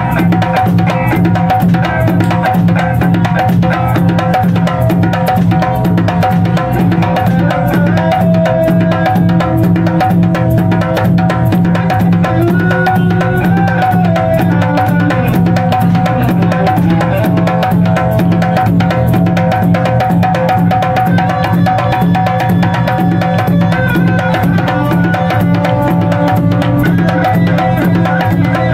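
A live Afro-jazz fusion band plays steadily: djembe and a barrel hand drum beat a dense rhythm under an electric guitar, with a strong low bass line and held melody notes on top.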